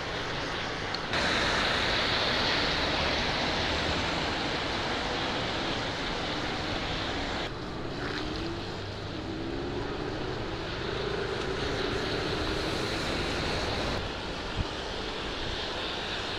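Steady rushing road noise while riding an e-bike on wet roads in the rain: a hiss of water and tyres with wind on the microphone, louder for the first several seconds, and a faint hum rising in pitch around the middle.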